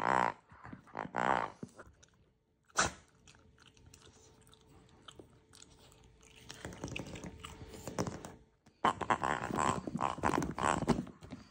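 Rubber pig toy giving oinking grunts as it is squeezed: two grunts near the start, then quieter handling noise, then a longer run of grunts near the end as it is moved about again.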